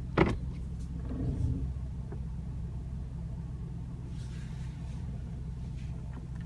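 A 2016 Porsche Macan Turbo's 3.6-litre twin-turbo V6 idling, heard as a steady low drone inside the cabin. A sharp click comes about a quarter second in.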